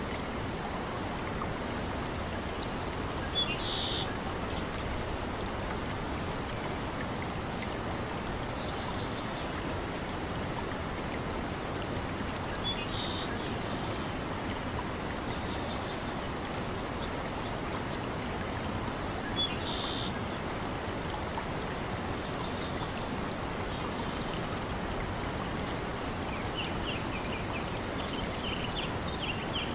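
Steady rush of flowing water in a nature ambience, with short high chirps, likely birds, four times at intervals of six to ten seconds.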